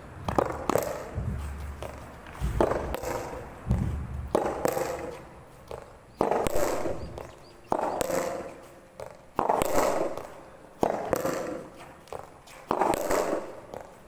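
Soft tennis balls being struck by rackets again and again, a sharp pock roughly every one and a half to two seconds, each with a short fading ring.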